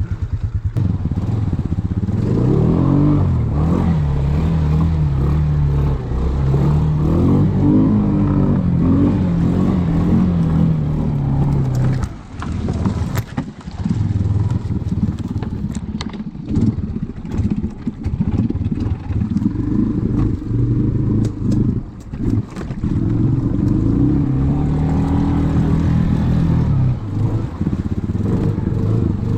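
ATV engine running under load, its pitch rising and falling as the throttle is worked, with a couple of brief lulls where the throttle comes off. Scattered knocks and rattles from the machine over rough ground.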